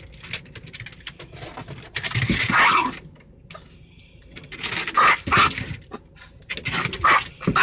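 Small dog vocalizing in three short, loud bursts, about two, five and seven seconds in, inside a car.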